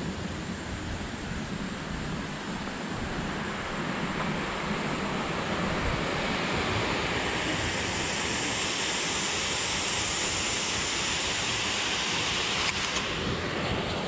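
Steady rushing of a waterfall, growing a little louder over the first few seconds.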